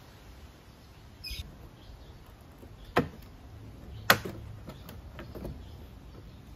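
Plastic trim clips snapping loose as the left side skirt panel of a Honda PCX 150 scooter is pulled off: two sharp snaps about a second apart, the second the loudest, then a few lighter clicks.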